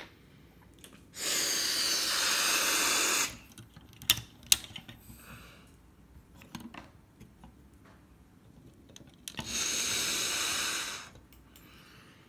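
Two hissing bursts of about two seconds each, one early and one near the end. Between them, two sharp plastic clicks and a few softer ticks as Lego Hero Factory armour and limb pieces are snapped onto the figure's ball joints.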